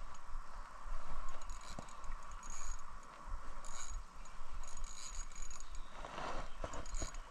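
Spinning reel being cranked on an ultralight rod, a steady mechanical whir broken by handling knocks, with short high squeaks now and then.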